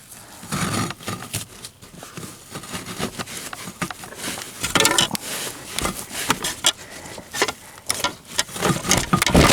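A foam block being pulled and worked out from under a truck seat cushion: irregular scraping, rustling and crackling with sharp clicks and knocks. It grows louder about five seconds in and again near the end.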